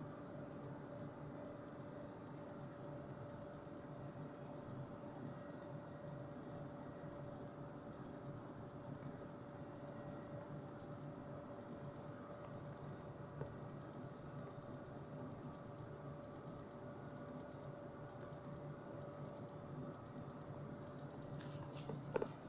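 Motorcycle hazard-flasher unit ticking in quick little clusters, about one and a half times a second, in time with the flashing indicators, over a faint steady hum.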